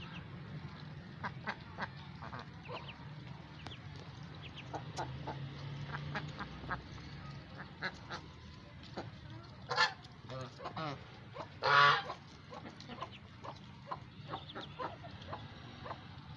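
Domestic geese feeding, with two loud honks about ten and twelve seconds in. Between them, many short soft clicks and calls as the birds peck at grain on the ground.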